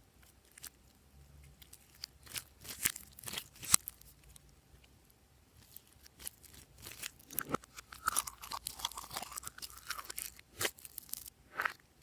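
Glossy slime being worked and mixed by hand, giving scattered sharp clicks and crunches, then a denser run of crackling in the second half.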